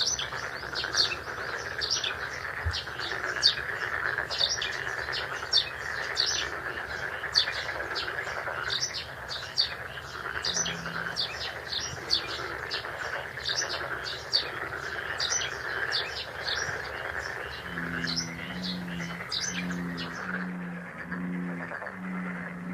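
Small birds chirping rapidly and continuously over a steady background hiss. About eighteen seconds in, a lower, repeated cooing call joins them.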